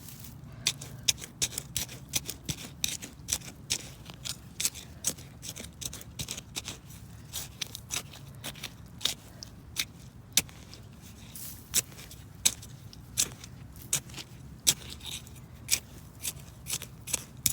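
Hands digging through soil for potatoes: a run of short, sharp scrapes and clicks at an irregular pace of about two a second.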